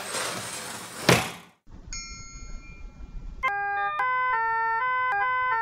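Radio-drama elevator sound effects: a rush of hissing noise that ends in a sharp thunk about a second in, then an elevator bell dings once. From about three and a half seconds an elevator speaker plays a simple electronic commercial jingle of clean stepping notes.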